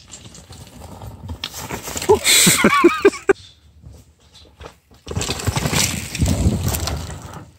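Mountain bike ridden fast down a dirt trail: a rushing, rattling noise of tyres over dirt and roots, heard through a bike-mounted camera in short clips. About two to three seconds in, a few short pitched sounds rise and fall.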